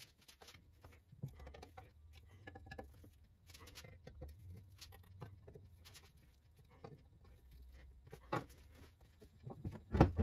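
Faint scraping and small clicks of a screwdriver driving slotted screws into a cast-iron lathe foot, then a few louder knocks near the end as the heavy lathe bed is handled on the bench.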